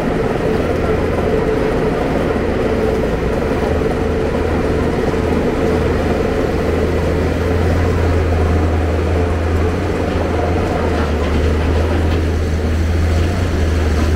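Hyundai Robex 290LC excavator's diesel engine running steadily under working load as the machine digs and swings, heard close up from its engine deck as a continuous low drone that grows a little stronger in the second half.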